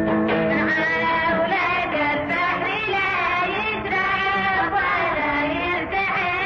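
Arabic song: a singing voice with instrumental backing, the voice sliding between long held notes.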